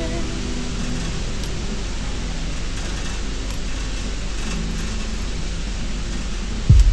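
Steady room noise with a low hum inside an indoor shooting range. A heavy, low thump breaks in near the end.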